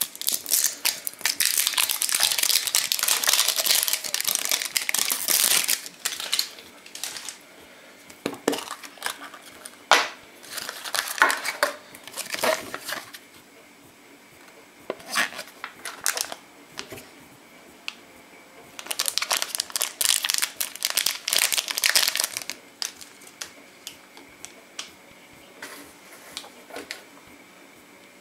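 Crinkly wrapper being peeled off a plastic surprise egg by hand, then a small plastic bag and a paper leaflet being handled. The crinkling is longest and loudest in the first few seconds, then comes in shorter bursts with a few sharp clicks.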